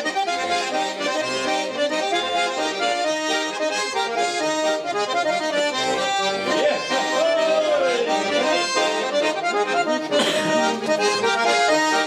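Russian garmon, a small button accordion, playing a lively folk tune with melody over chords.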